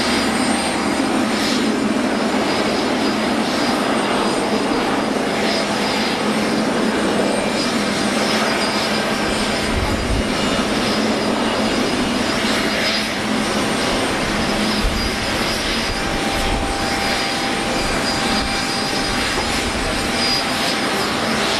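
Boeing 777-300ER's GE90-115B turbofans running at low taxi power as the airliner taxis past: a steady jet noise with a thin, high, steady whine over it.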